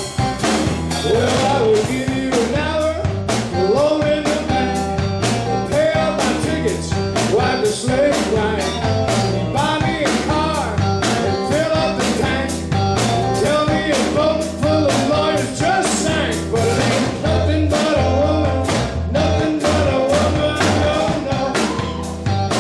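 Live blues-rock band playing: electric guitar, bass guitar and a drum kit keeping a steady beat.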